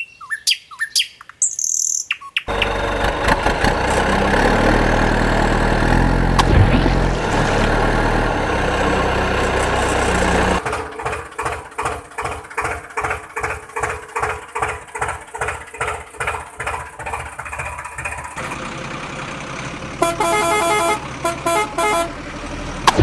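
A sequence of vehicle sound effects: birds chirping briefly, then a heavy truck engine running steadily, then a tractor engine chugging at about two beats a second. Near the end a horn honks in short blasts, and a sudden loud splash comes right at the end.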